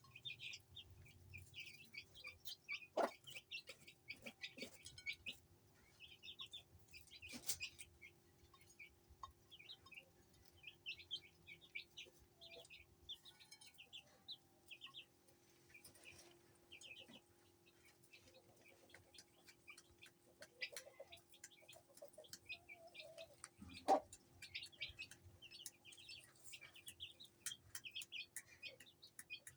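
Aseel chicks peeping in many short, high chirps, with now and then a low cluck from the hen. A few sharp knocks stand out, the loudest near the end, over a faint steady hum.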